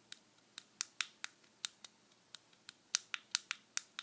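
Plastic buttons on a cheap knockoff fidget cube being pressed and clicking, about fifteen short sharp clicks at an uneven pace of roughly four a second.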